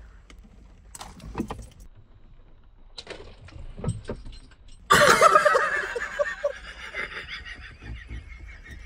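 Crinkling and clicking of small plastic sweet packaging being handled, then, about five seconds in, a person gives a sudden loud high-pitched squeal that trails off over the next few seconds.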